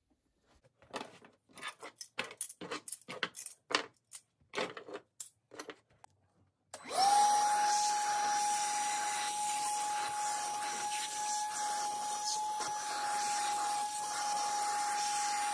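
A run of clicks and knocks of metal hand tools being handled, then about seven seconds in a shop vacuum switches on and runs with a steady whine, its nozzle sucking debris out of a felt-lined tool chest drawer.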